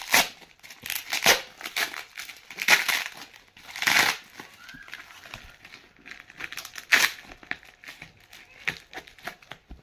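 Plastic packaging being crinkled and torn open by hand, irregular rustling with several loud sharp rips and crackles.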